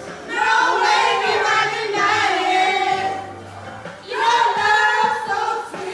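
Karaoke singing: voices singing loudly into a microphone with long held notes, over a faint backing track.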